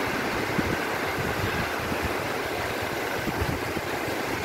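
Small waves washing and breaking in the shallows as a steady rushing noise, with an uneven low rumble from wind on the microphone.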